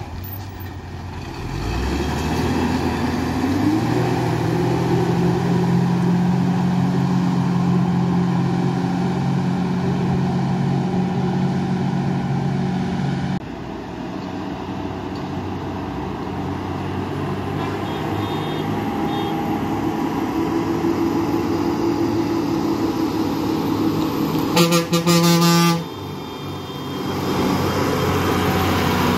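Diesel engines of heavily loaded lorries labouring in low gear around a steep hairpin bend, the engine note rising in pitch in the first few seconds and then holding steady, with an abrupt change about halfway through. A loud vehicle horn sounds for about a second near the end.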